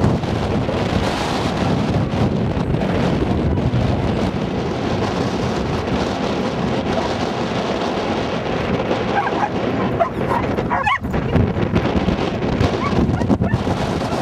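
Dogs yipping and whining, with a few short high calls about nine to ten seconds in, over steady wind buffeting the microphone.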